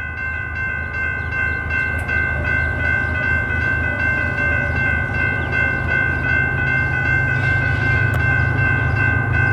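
Railroad crossing's electronic warning bell ringing in quick, even strokes while the gates come down. A steady low rumble runs underneath.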